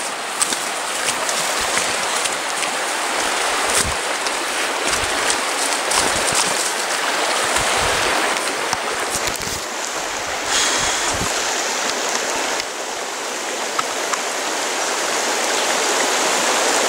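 A shallow, rocky river rushing steadily over stones. Over the first part come low bumps and rustling from the camera being carried through undergrowth.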